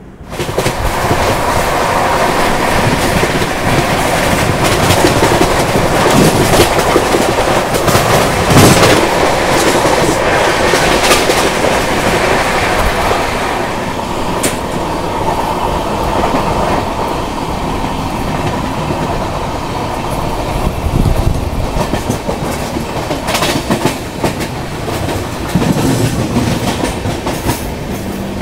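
Passenger train running at speed, heard from an open coach door: a steady rush of running noise with scattered clacks of the wheels over the rails, loudest in the first half.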